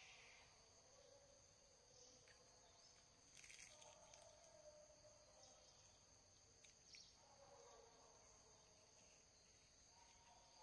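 Faint forest ambience: a steady, high-pitched drone of insects, with a few brief faint chirps.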